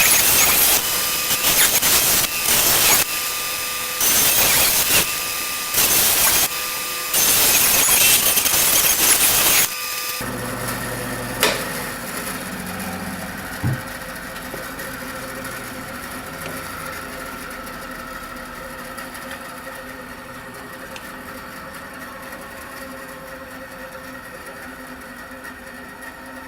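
Bandsaw blade cutting through a pine 2x4 in repeated loud stretches of one to two seconds. About ten seconds in the cutting stops, a click follows, and the saw's running sound goes on steadily while fading slowly.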